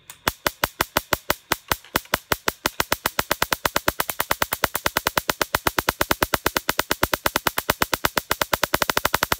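The spark gap of a small homemade Tesla coil firing: a rapid train of sharp snapping cracks that starts at about five a second and speeds up to about ten or more a second, growing sharper near the end. The spark gap is pretty loud.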